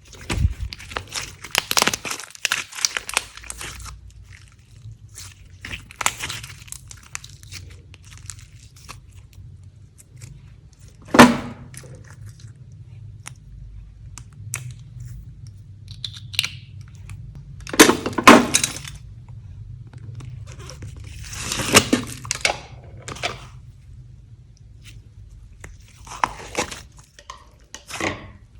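Slime being kneaded and mixed by hand: irregular sticky crackling and crunching, with three louder squelching bursts spread through, over a faint steady low hum.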